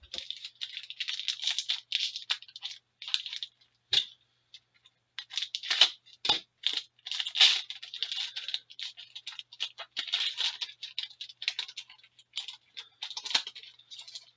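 A pack of hockey cards being torn open, its wrapper crinkling and crackling in irregular spurts with sharp ticks as the cards are pulled out and handled.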